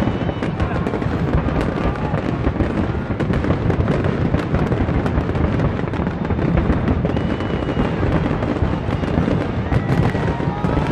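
Aerial fireworks display in a dense, continuous barrage: overlapping booms and crackling bursts with no break between them.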